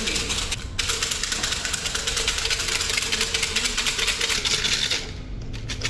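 Siam si fortune sticks rattling in their cylinder as it is shaken fast, a dense steady clatter of many sticks knocking together. The shaking goes on until a single numbered stick drops out. The rattle breaks off briefly just before one second in and stops about five seconds in.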